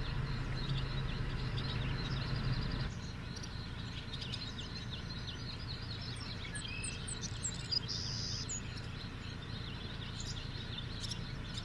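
Outdoor bushland ambience of many small birds chirping and calling. A steady low hum runs underneath for the first three seconds or so, then stops.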